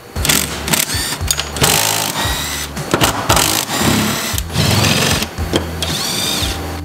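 A cordless drill-driver running in short bursts, its motor whine rising and falling as it backs out the fasteners holding a car's gear-shift mechanism. Background music runs underneath.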